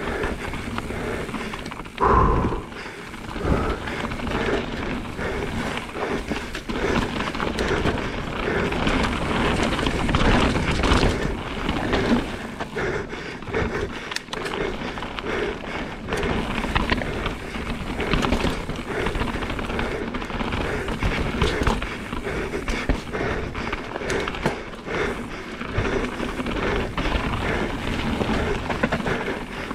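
Mountain bike descending a rough downhill trail at race pace: continuous tyre noise with the frame and parts rattling and knocking over bumps, and a hard thump about two seconds in.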